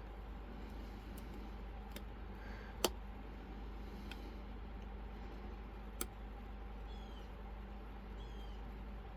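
Lock picks working the pins inside an Inaho Tierkey lock: a few sharp small metallic clicks, the loudest about three seconds in and another about six seconds in, over a low steady hum. Faint short high squeaks near the end.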